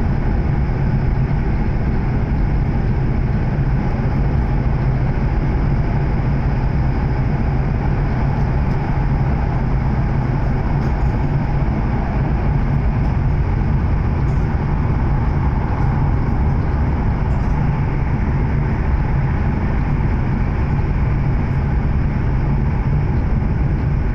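Running noise of an E7 series Shinkansen heard inside the passenger car: a steady, loud low rumble with a hiss above it that does not change.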